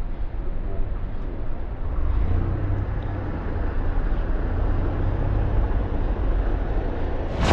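City street ambience: a steady low rumble of road traffic with no distinct events.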